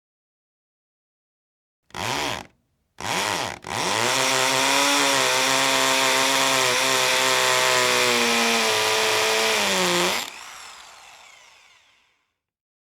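Hammer drill triggered twice in short blips that spin the motor up and stop, then run steadily for about six seconds. It is then released and winds down, fading out over about two seconds.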